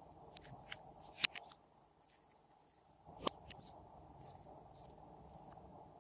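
Glossy slime being worked by hand, giving small sticky pops and clicks, with two sharper pops about a second in and about three seconds in.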